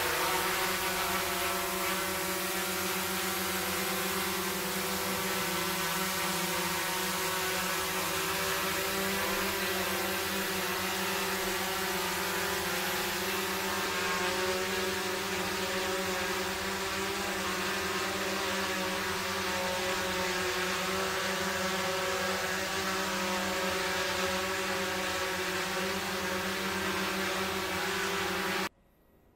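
DJI Mavic 2 Zoom quadcopter hovering, its propellers giving a steady hum of several held tones over a rush of air, about 75–76 dB on a noise meter. Cuts off suddenly near the end.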